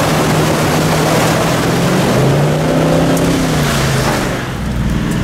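Toyota four-wheel drive's engine pulling through a river crossing, heard from inside the cab, over loud rushing and splashing of water against the vehicle. The engine note rises and falls about halfway through, and the water noise eases near the end.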